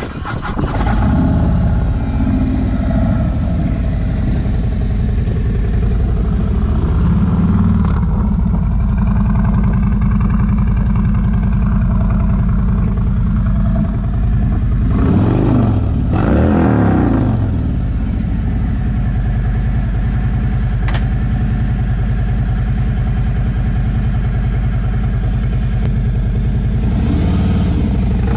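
Harley-Davidson Tri-Glide's Milwaukee-Eight 114 V-twin running through newly fitted slip-on mufflers with 2.5" louvered baffles. It is idling with several throttle blips, the two biggest revs coming back to back about halfway through.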